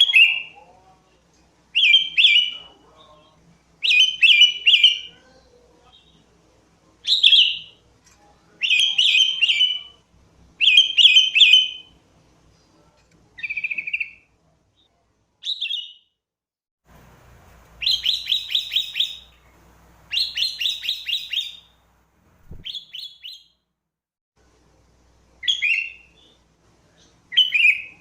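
Sooty-headed bulbul (kutilang) singing: short phrases of quick whistled notes, one every second or two, with a faster run of repeated notes just past the middle.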